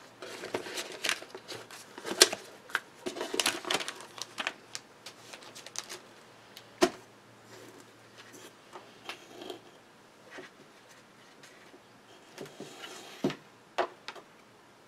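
Hands handling a cardboard box of laminating pouches and setting it down on a cutting mat: a busy run of light rustles and taps in the first few seconds, one sharp tap, then a few scattered taps near the end.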